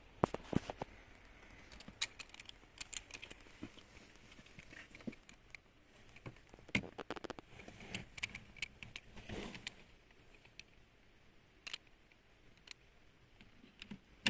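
Irregular light clicks and taps, like small metal parts and hand tools being handled and set down, with no steady rhythm.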